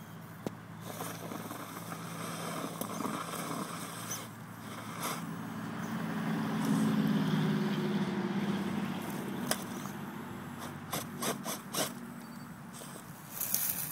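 Electric motor and geartrain of a competition RC rock crawler (Axial XR10) whining as it climbs rock. The whine swells loudest in the middle, and several sharp clicks and taps follow near the end.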